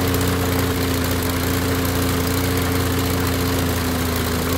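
Toro Recycler lawnmower engine running steadily just after catching, its carburetor's clogged main jet newly replaced and its fuel system newly refilled.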